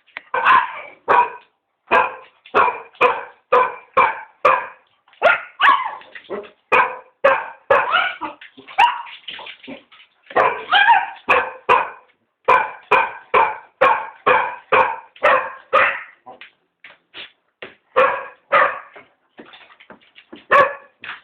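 Cocker spaniels barking in a rapid run of short barks, about two a second, with brief pauses and fewer barks near the end: demand barking to be taken for a walk.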